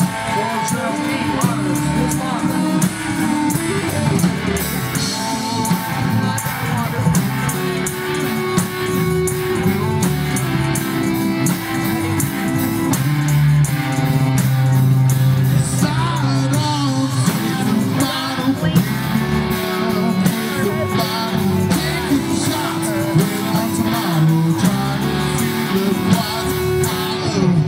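Live rock band playing: electric guitars, bass and drum kit, with a singer.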